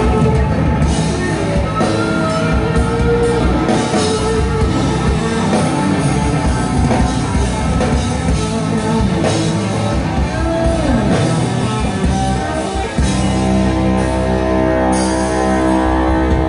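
Live rock band playing loudly through a large outdoor PA: electric guitar and drum kit, with singing. About thirteen seconds in the band moves into long held chords.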